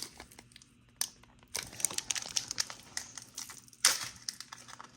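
Plastic wrapper of a trading card pack crinkling and crackling as it is torn open, with a sharp snap of the wrapper about four seconds in. The older pack is a struggle to open.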